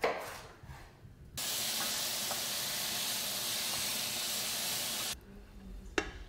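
Food sizzling in a hot pan: a steady hiss that cuts in about a second and a half in and stops suddenly about five seconds in. A knock is heard at the start and a sharp click near the end.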